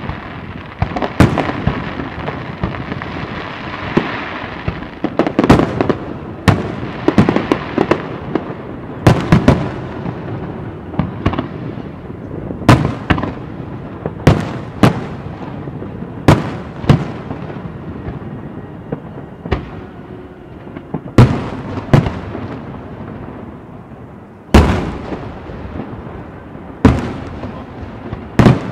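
Aerial firework shells bursting: a long string of sharp booms at irregular intervals, coming closer together in the first ten seconds, each trailing off in an echo.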